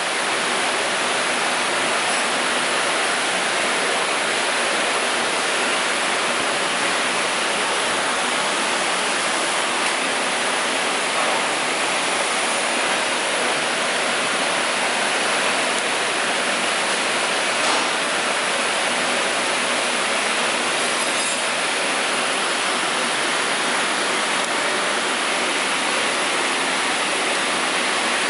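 Steady, even hiss of background noise with no rhythm or pitch, unchanging in level.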